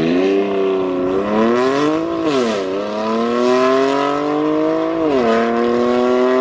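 Car engine accelerating through the gears: the pitch climbs, drops sharply at an upshift about two seconds in, climbs again and drops at a second upshift about five seconds in, then keeps rising.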